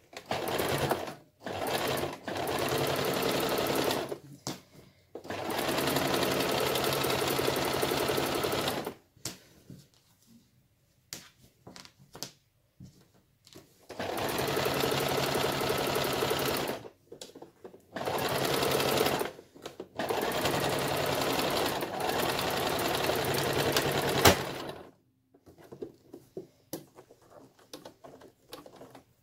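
Toyota electric sewing machine stitching in runs of one to four seconds, starting and stopping several times. The pauses between runs hold light clicks, and a sharp click comes as the last run stops.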